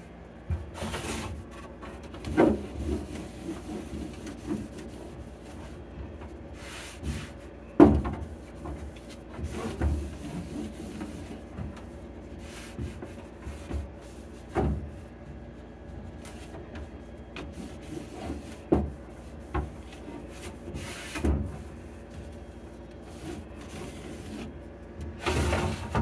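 Cloth wiping and rubbing over the plastic bins, shelves and crisper drawers inside a refrigerator, with scattered knocks and bumps of plastic as the parts are handled, the sharpest about eight seconds in.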